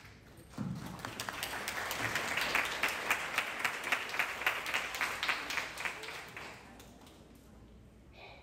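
Audience applauding, starting about half a second in and dying away after about six seconds, with one nearby pair of hands clapping louder at about three claps a second.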